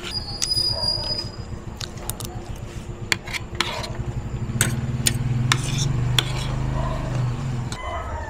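A metal spoon and fork clink and scrape against a ceramic plate many times, some strikes ringing briefly. A low engine rumble from a passing vehicle builds through the middle and drops away near the end.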